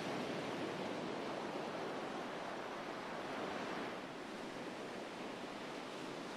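Ocean surf on a sandy beach: a steady rush of breaking and washing waves, easing slightly about four seconds in.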